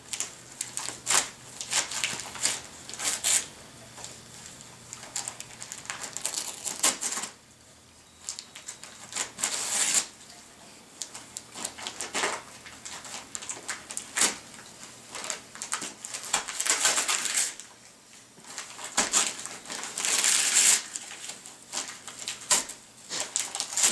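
Christmas wrapping paper crinkling and tearing in irregular bursts with short pauses, as a black Labrador retriever rips it off a present with her teeth and paws.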